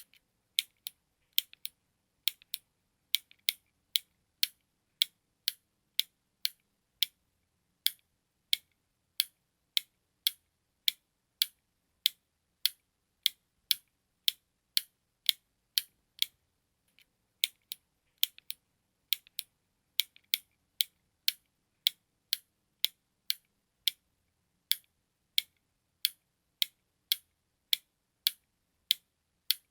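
Button sound effect: sharp, crisp clicks repeating steadily at a little under two a second, like a clock's tick-tock, with a brief break a little past halfway.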